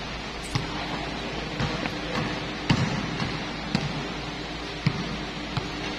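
A basketball being dribbled on a concrete court. There is one sharp bounce roughly every second.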